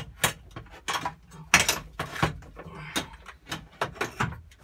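A quick string of sharp knocks and clatters from a cordless drill and hands working against fittings in a cramped boat engine compartment.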